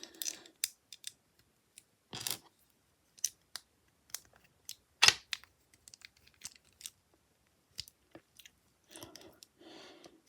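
Lego bricks being handled and pressed together: scattered sharp plastic clicks and snaps, the loudest about two and five seconds in, with a soft rustle of pieces near the end.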